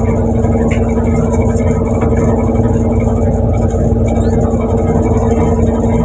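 Fishing boat's engine running steadily: a loud, even drone with a constant hum.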